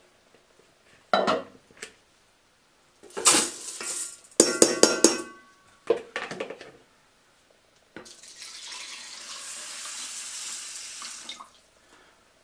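Washed sushi rice tipped from a mesh sieve into a rice cooker's inner pot, with several knocks and clatters of the sieve against the pot in the first six seconds, one of them ringing. Then, about eight seconds in, water poured from a plastic measuring jug into the rice for about three and a half seconds.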